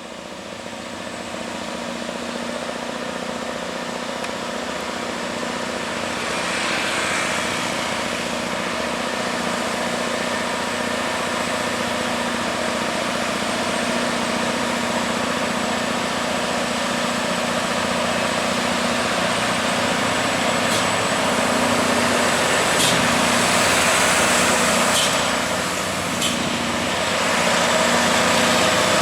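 Scania R580 trucks' 16-litre V8 diesel engines roaring as they pull heavy 30-tonne loads uphill. The sound grows louder over the first several seconds, stays steady, dips briefly and swells again near the end. A few sharp clicks come in the later part.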